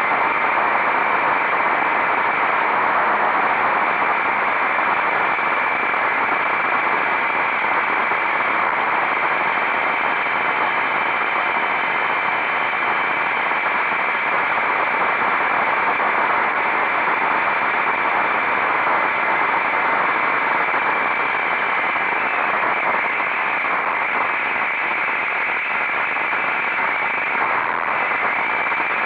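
Steady rushing wind noise on the microphone of a motorcycle riding at speed, with the bike's engine and road noise faintly underneath.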